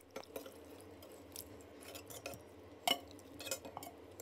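Ladle and spoon clinking lightly against a serving bowl as soup is ladled in, with a few scattered short clinks and liquid drips over a faint steady hum.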